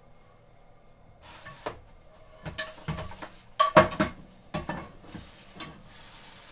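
Metal frying pan and utensils clattering off to the side: a run of knocks and clinks, with the loudest ringing clangs about halfway through.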